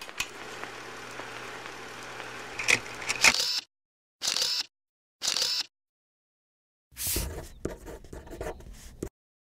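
Film camera mechanism sounds in short separate snippets: sharp clicks, two brief scraping bursts, then a run of small clicks and knocks, with dead silence between them.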